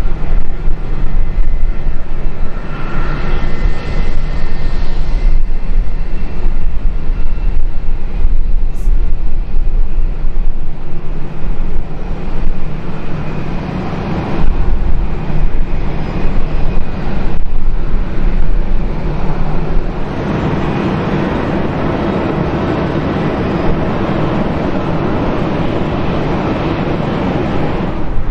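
Jet airliner engines, a Swiss Airbus A220, rolling out on the runway after landing: a loud, steady rush with a faint whine. About two-thirds of the way through the sound evens out into a steadier rush.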